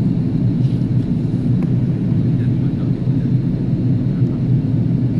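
Airbus A330-300 passenger cabin noise on approach: a steady low rumble of engines and airflow, heard from a window seat beside the wing.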